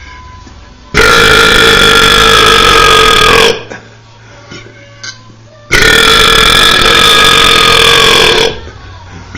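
A person letting out two long, loud belches, each close to three seconds, with a steady pitch that sags slightly at the end of each.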